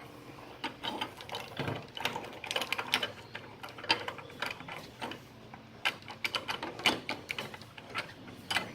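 Irregular clicking and rattling of small plastic toy-car parts being handled and screwed together.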